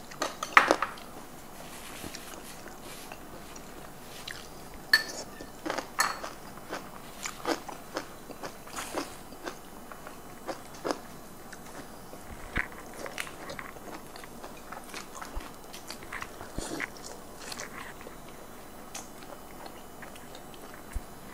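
Close-miked eating: chewing and crunching food, with scattered sharp clicks and taps from cutlery and dishes, loudest in the first second and again around five to six seconds in.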